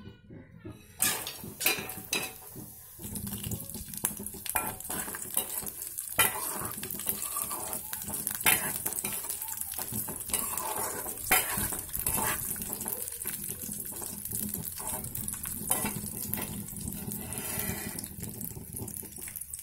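Cashews, raisins and sliced almonds frying in ghee in an aluminium kadhai, a steady sizzle starting about a second in. A steel ladle stirs them, scraping and knocking against the pan many times.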